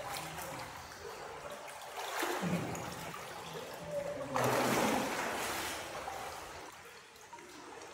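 Running water trickling and splashing, swelling louder about two seconds in and again from about four to six seconds in.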